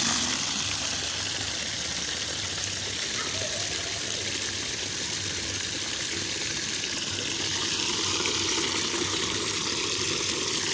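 Water running steadily as a container is being filled.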